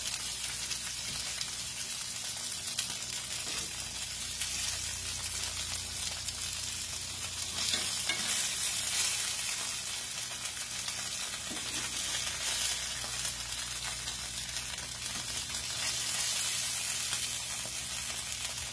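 Breaded cube steaks frying in hot grease in a cast-iron skillet: a steady crackling sizzle, with a few light clicks as the steaks are lifted out with metal tongs.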